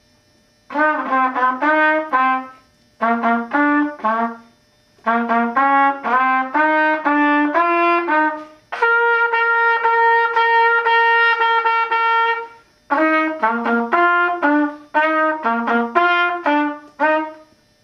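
A wind instrument played as melody: short phrases of quick stepwise notes with brief pauses between them, one long held note in the middle, then more quick phrases.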